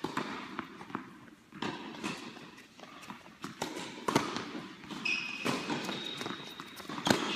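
Tennis ball bounced several times on an indoor hard court before a serve, then the pop of the racket hitting the serve about four seconds in, and a louder racket hit near the end as the ball is returned. A few brief high squeaks come between the hits.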